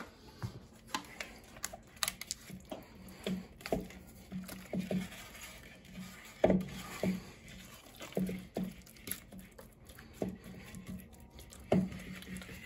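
Spatula stirring raw chicken thighs in a wet spice marinade in a plastic mixing bowl: irregular soft knocks and scrapes against the bowl, with a few louder knocks.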